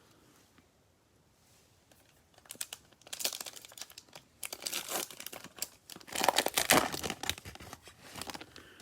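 The wrapper of a Panini Mosaic basketball trading-card pack being crinkled and torn open. It starts about two and a half seconds in and is loudest about two-thirds of the way through.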